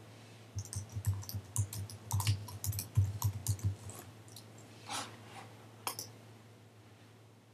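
Rapid, irregular clicking: about fifteen short clicks packed into the first four seconds, then two single clicks about a second apart.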